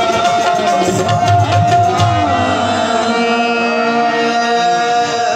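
Qawwali music: harmonium and a long held sung note over drum and clap strokes. The percussion stops about two seconds in, leaving the harmonium and voices holding their tones.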